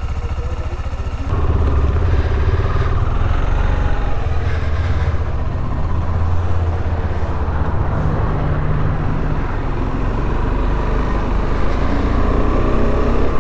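KTM 390 Adventure's single-cylinder engine running as the motorcycle moves off and rides at low speed, getting louder about a second in.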